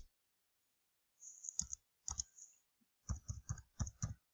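Computer keyboard being typed on. After about a second without sound come a few separate keystrokes, then a quick run of about six keystrokes near the end.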